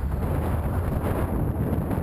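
Wind rushing steadily over the microphone of a moving motorcycle, with the motorcycle's engine running low underneath.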